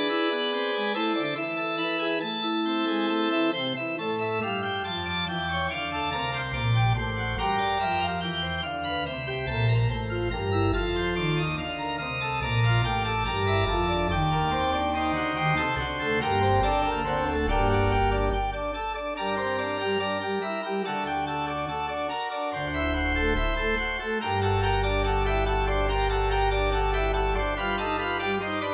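Organ music: sustained chords over a bass line that steps downward again and again, settling into a long held low chord near the end.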